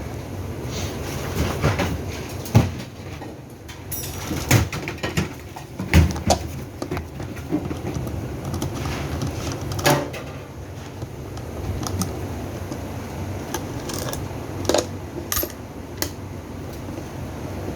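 Irregular knocks, clicks and clatter of hard parts being handled, over a steady low hum.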